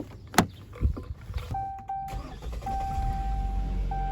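A couple of sharp clicks, then a car's electronic warning chime holding one steady tone with a few short breaks, over a low engine rumble that comes up about two and a half seconds in.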